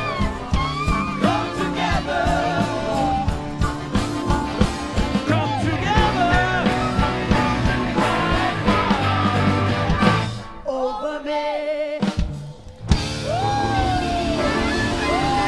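Rock music with singing over drums and bass. About ten seconds in the low end drops away, the music nearly cuts out for a moment, then comes back.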